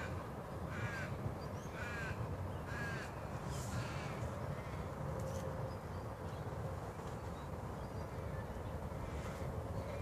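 A crow cawing repeatedly, about one call a second through the first four seconds and fainter after, over a steady low background rumble.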